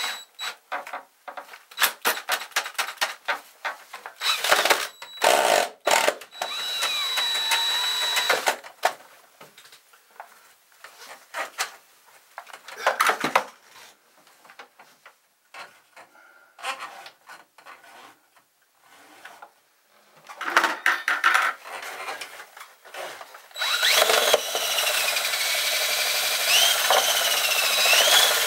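Cordless drill spinning a drum drain auger while its cable is fed into the drain. The cable rattles and clicks through short, stop-start runs. About four seconds before the end the drill settles into a steady run, with a motor whine that wavers in pitch.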